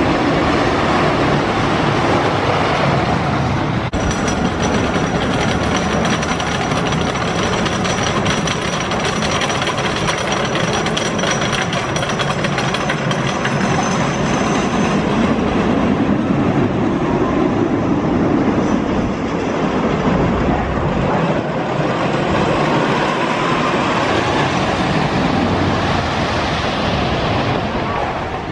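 Wooden roller coaster train running along its track, a loud continuous rumble and clatter, with a brief break about four seconds in.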